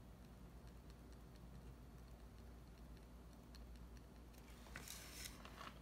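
Faint, scattered ticks of a white gel pen tip dotting small marks onto watercolour paper, with a few louder scratchy pen strokes a little past four seconds in.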